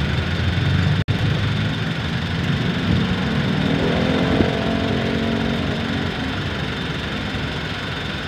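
Honda CR-V's four-cylinder engine idling steadily, heard from over the open engine bay; it is being run after a radiator replacement to bleed air out of the fresh coolant. The sound cuts out for an instant about a second in.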